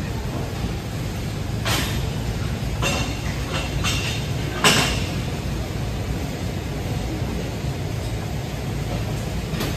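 Steady low rumble of gym background noise, with a handful of short knocks or clicks, the loudest about five seconds in.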